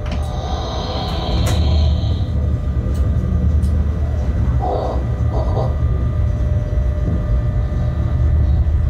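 Bombardier Traxx BR186 electric locomotive running along the track, heard from the cab: a steady low rumble of the wheels on the rails with a constant electric hum from the traction equipment. A short hiss in the first couple of seconds and a few faint clicks.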